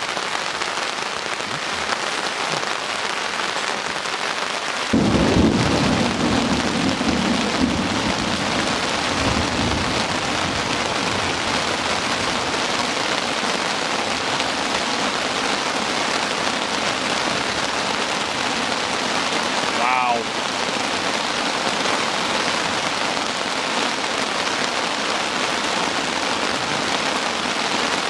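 Heavy rain falling steadily in a thunderstorm downpour. About five seconds in a thunderclap breaks out and rumbles for several seconds before fading back under the rain.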